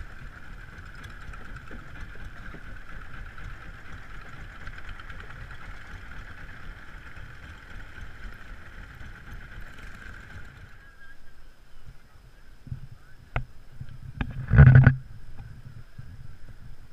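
Long-tail wooden boat's engine running steadily as the boat moves across the lake; the engine sound cuts off about eleven seconds in. A single brief loud sound comes near the end.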